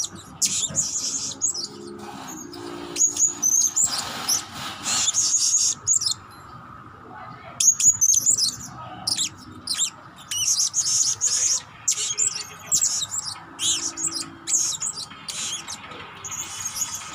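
Blue-crowned hanging parrot (serindit) calling: quick runs of high, thin chirps and twitters, with a break of about a second and a half some six seconds in.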